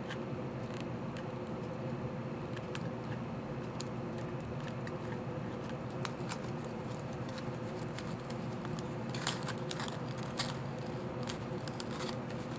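Aluminium foil crinkling in the hands in scattered light crackles, with a cluster of louder crackles about three quarters of the way through, over a steady low hum.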